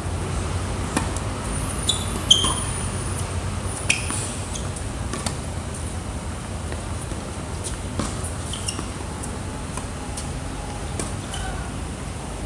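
Tennis rally on a hard court: a ball struck by rackets and bouncing, a series of sharp pops spread irregularly through the rally, the loudest about two seconds in, over a steady low rumble.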